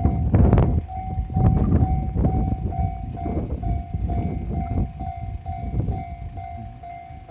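Japanese level-crossing alarm ringing, about two strokes a second, over strong wind buffeting the microphone and the low rumble of a passing diesel train, which fades toward the end.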